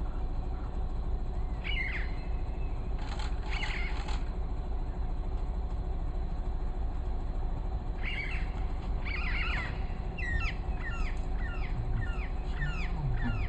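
Wild birds calling over a steady low rumble. There are scattered calls at first, then from the middle onward a quick run of short, downward-sliding chirps, about three a second.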